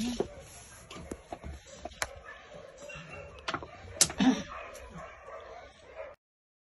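Scattered clicks and knocks of hands and bedding moving against wire cages, with a short low dog whimper about four seconds in. The sound cuts off suddenly about six seconds in.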